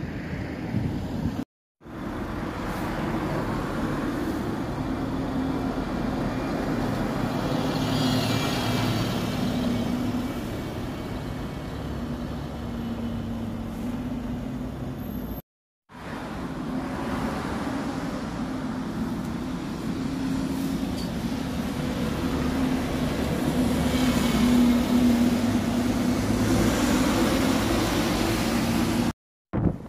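Alexander Dennis Enviro200 MMC single-deck buses and other traffic driving past, the bus engines running with a steady low hum. It is loudest near the end as a bus draws close. The sound drops out briefly at two edit cuts, about a second and a half in and about halfway through.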